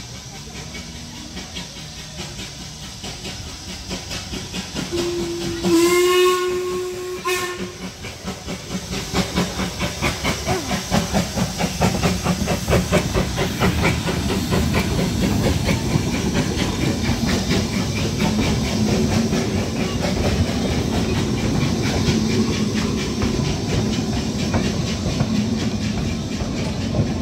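Narrow-gauge steam locomotive sounding one whistle of about two seconds. It then passes close by with a run of rhythmic exhaust chuffs, and its coaches rumble and clatter over the rails.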